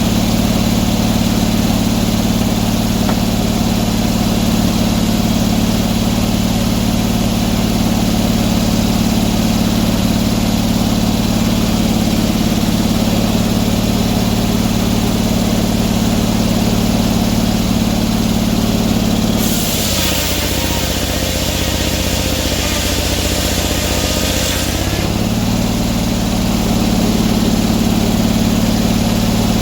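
Sawmill engine running steadily. About two-thirds of the way through, for some five seconds, its note changes and a loud high hiss rises over it, then the steady running returns.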